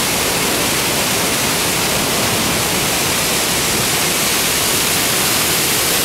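The Düden Waterfall's cascades falling and rushing through the rapids below: a loud, steady rush of water.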